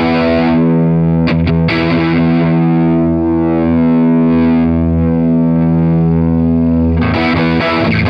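Electric guitar played through a Kernom Ridge analog overdrive pedal: a distorted chord is struck and left to ring for several seconds, with a few light pick clicks about a second and a half in, then strummed again near the end.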